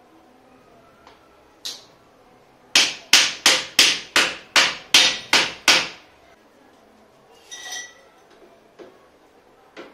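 A hammer knocking a steel tube of a collapsible wardrobe frame into its plastic connector: a quick run of about nine sharp strikes, about three a second. A short metallic rattle follows a couple of seconds later.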